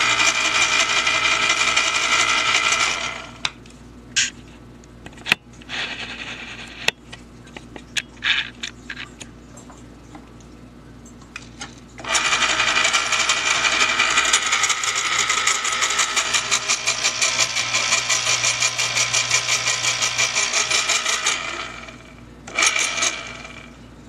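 Electric can opener running with its housing off: the motor and its plastic and metal gear train spin the cutting wheel with no can in it. It runs for about three seconds and stops, gives a few clicks and short spurts as the lever is pressed, then runs again for about nine seconds with a fast, even pulsing, and once more briefly near the end.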